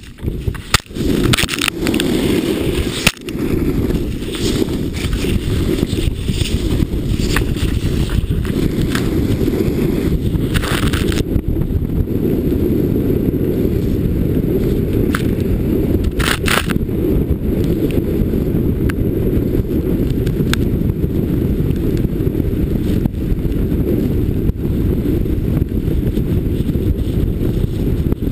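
Wind rumbling steadily on an action camera's microphone as a snowboard rides through deep powder, with the board hissing and scraping through the snow. A few sharp knocks come in the first few seconds and again about halfway.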